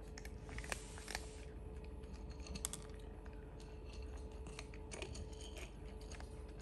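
A cat crunching dry kibble from a plate, in irregular sharp crunches with a few louder ones about a second in and partway through, over a faint steady hum.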